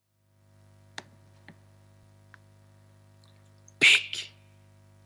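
A steady low electrical hum comes on just after the start, with a few faint clicks. About four seconds in, a loud, short rushing noise comes in two quick parts.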